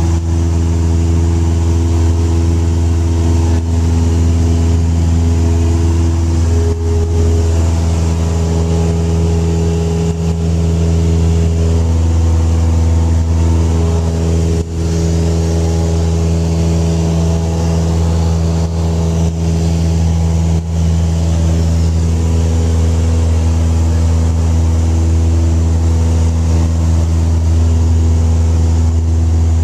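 Single-engine high-wing light aircraft's piston engine and propeller running steadily in flight, heard from inside the cabin as a loud, even drone.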